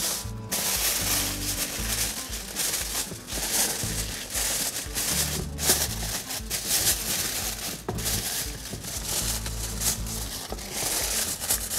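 Aluminium foil crinkling and crackling as it is folded and crimped by hand over the rim of a foil tray, with irregular crackles and a few sharp clicks. Background music with a steady bass line plays underneath.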